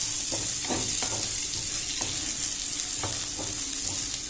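Cabbage and carrot strips sizzling in hot oil in a pan while a spatula stirs them, its strokes scraping against the pan every half second or so.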